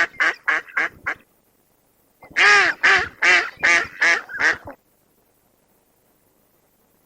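A bird calling in two quick runs of short, harsh calls: about five at the start, then about seven more a little over two seconds in.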